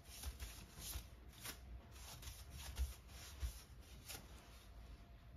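Faint rustling and handling sounds as hands and a paintbrush move about on the paper-covered bench, a string of short soft strokes with two sharper knocks a little under halfway through.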